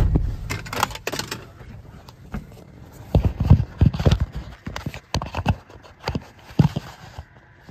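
Knocks and thumps of things being handled inside a tractor cab. One sharp knock comes at the start, then an irregular run of knocks and bumps a few seconds in.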